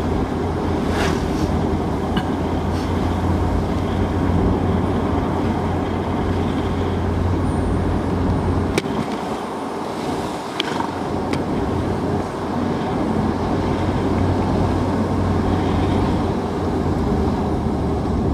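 Car cabin noise while driving: a steady low engine and tyre rumble with a few sharp clicks or rattles. The low rumble eases off for a couple of seconds about halfway through, then returns.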